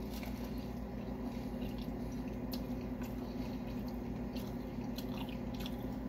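A person biting into and chewing a soft, saucy burger up close: wet squishing mouth sounds and scattered small clicks over a steady low hum.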